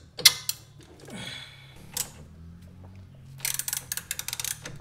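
Hand ratchet wrench clicking: a few scattered metal clicks and a scrape, then a quick run of about a dozen clicks near the end as the handle is swung back.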